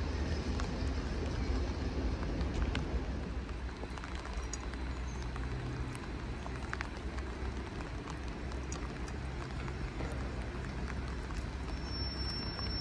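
Steady low rumble of regional trains moving through a railway station, under an even hiss like rain. A thin, high, steady squeal starts near the end as a train comes in.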